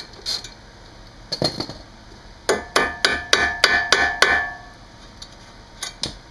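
Hammer tapping a steel bolt on a car's front suspension to drive it out. There are a few single taps, then a quick run of about eight ringing metal strikes at roughly four a second, and a last tap near the end.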